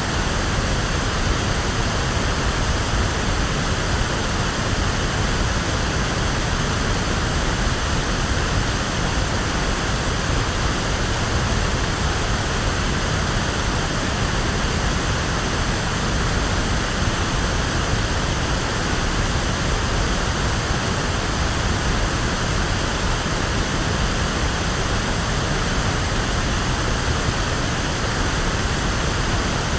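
Steady electronically generated pink noise, an even hiss like a waterfall, with no change in level.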